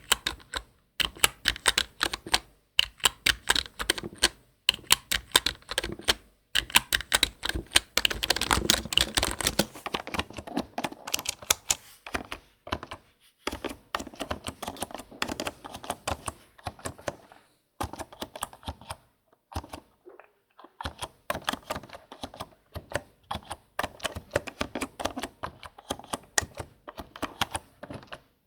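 Typing on a computer keyboard: fast runs of key clicks broken by short pauses, with one brief stop about two-thirds of the way through.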